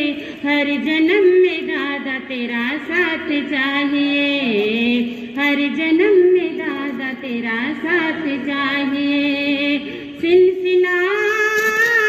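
A Jain sadhvi's solo voice singing a slow devotional melody into a microphone, with many quick ornamental turns and wavers in pitch. About ten seconds in she breaks briefly, then holds a higher note.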